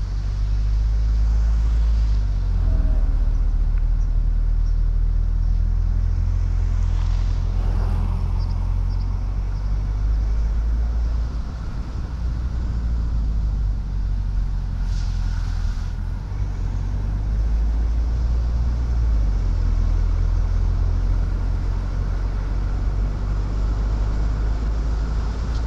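A car driving along a country road: a steady low rumble of engine and road noise, with a brief hiss twice, about a third and two-thirds of the way in.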